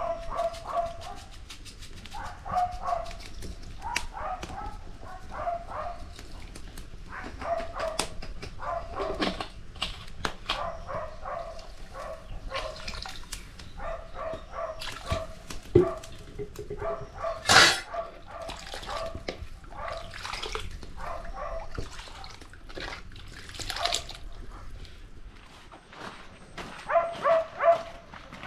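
Animal calls: many short pitched cries repeating throughout, mixed with scattered knocks, one louder knock about two-thirds of the way in.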